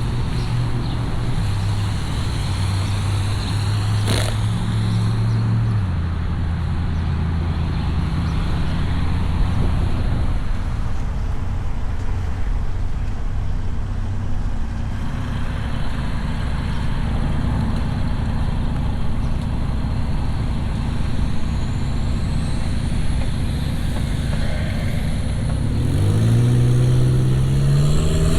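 Car engine and road noise from a vehicle driving along, the engine hum steady and low, dropping in pitch about six seconds in, then rising as it accelerates near the end. A single sharp click about four seconds in.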